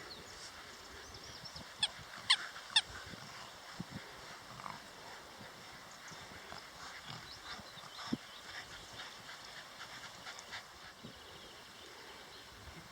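Animal calls: three short, sharp cries falling quickly in pitch about two seconds in, then a few fainter calls over a faint steady background.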